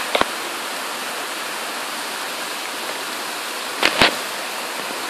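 Heavy tropical-storm downpour: a steady rushing hiss of rain. A sharp knock comes just after the start, and two more come close together about four seconds in.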